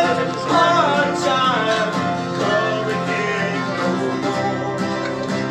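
Live acoustic session music: guitars and other plucked string instruments playing a tune together, with several voices singing along in the first couple of seconds.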